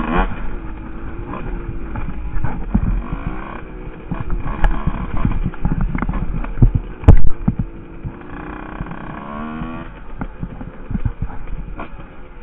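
Husqvarna WR 150 two-stroke dirt bike engine revving up and down while riding, with many short knocks and rattles as the bike goes over bumps. There is a loud thump about seven seconds in, and the engine rises sharply in pitch shortly after before dropping back.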